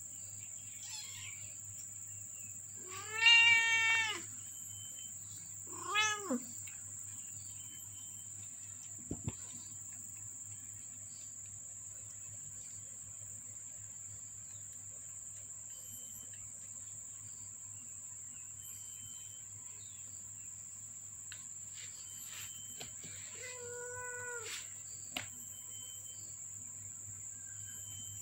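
Cat meowing three times: a loud meow of about a second, a shorter one falling in pitch a couple of seconds later, and a fainter one near the end. A steady high-pitched whine runs underneath.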